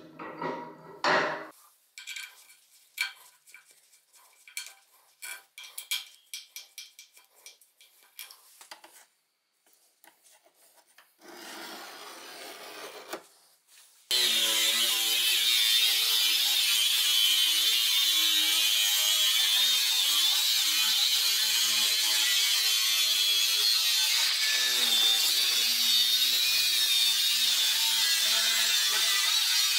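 Scattered metal clicks and knocks as a motor bracket is handled against a steel frame, then, about halfway through, an angle grinder with a thin cut-off disc starts cutting sheet metal: a loud, steady grinding with a high whine that runs on to the end.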